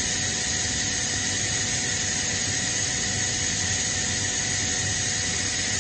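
Kaeser ASD47 oil-injected rotary screw air compressor running on load: a steady, unchanging machine noise with a high-pitched whine over it.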